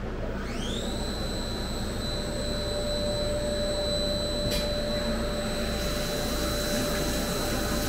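Syil X7 CNC mill's spindle spinning up with a rising whine that levels off into a steady high whine. A single click comes about four and a half seconds in, and near the end the flood coolant starts spraying with a hiss.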